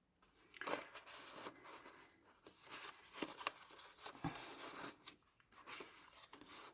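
Paper and card rustling, with light taps and scrapes, as journal tags and a small paper file folder are handled.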